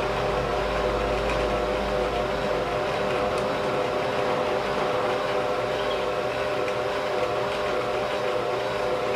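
Singer Heritage sewing machine running steadily at speed to wind a bobbin: an even motor whir with a fixed whine.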